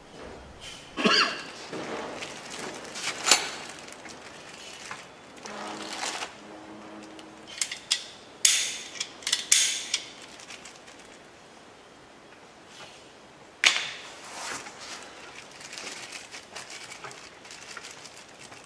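Unpacking handling noise: a plastic bag of small welding-set tools crinkling and hard parts being set down on a corrugated plastic sheet, with several sharp clacks spread through.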